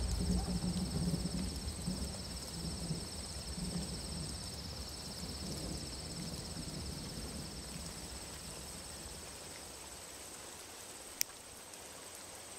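A low rumble of thunder dies away over the first few seconds, leaving a steady, pulsing chorus of crickets. About eleven seconds in comes a single sharp click of a lighter.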